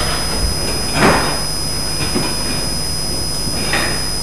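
A constant electrical hiss with a thin high whine from the recording chain, with a short scrape that falls in pitch about a second in and fainter brief scuffs near the start and near the end, as people settle in the room.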